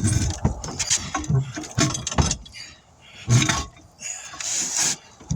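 Handling sounds of tire-repair work: a string of clinks and knocks, with a short hiss about four and a half seconds in.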